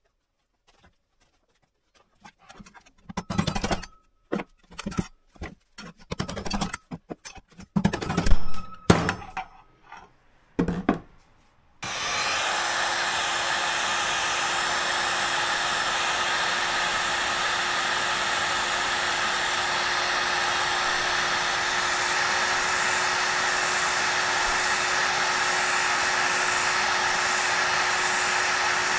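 A few scattered knocks and clatters of parts and tools handled on a workbench. Then, about twelve seconds in, an electric heat gun switches on and runs steadily with a constant hum, blowing onto the hub of a water-pump motor's plastic cooling fan.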